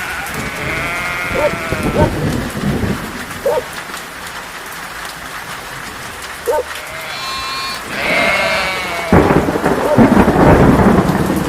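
Steady rain falling, with sheep bleating several times. A loud low rumble of thunder sets in suddenly near the end.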